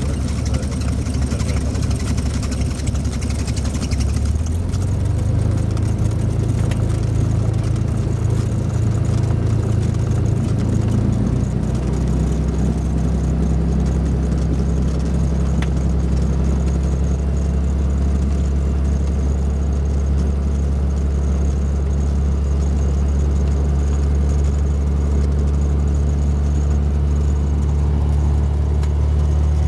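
Light propeller aircraft's piston engine running at low power, heard from inside the cabin during the landing rollout and taxi. It is a steady low drone that changes pitch about four seconds in and again about eleven seconds in.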